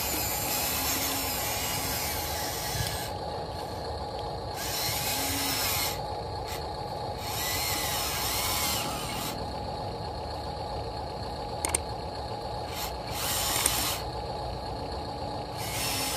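Small electric motors and gearboxes of an RC excavator whirring in several short spells, each a second or two long, with pauses between, as the boom, arm and bucket move. A steady hum runs underneath.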